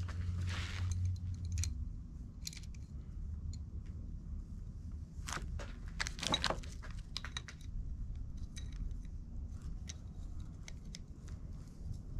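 Light metallic clinks and rattles of an adjustable wrench and a metal fitting being handled and tightened onto a rubber transmission cooler hose, with a cluster of clicks about six seconds in, over a low steady rumble.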